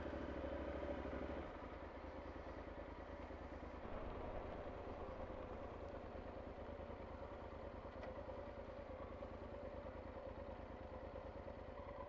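Motorcycle engine running, heard from the rider's seat. It idles, then pulls away and runs steadily at low road speed, with small changes in engine note about a second and a half in and again about four seconds in.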